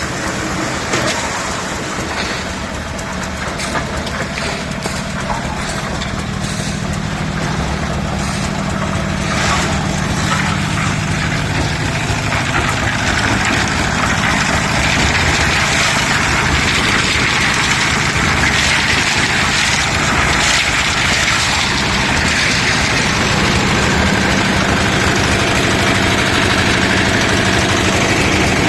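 Engine of a mini concrete lift machine running steadily. A rougher, higher noise builds in about halfway through and the sound grows a little louder.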